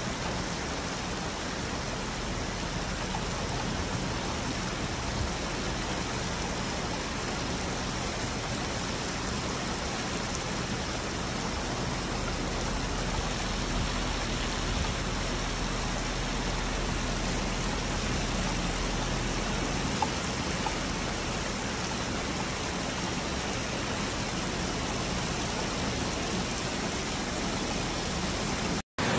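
Steady hiss of heavy rain mixed with muddy flash-flood water rushing across a desert wadi. The sound cuts out for an instant near the end.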